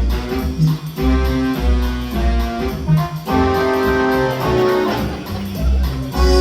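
Show music: held melody notes over a heavy, regularly pulsing bass beat.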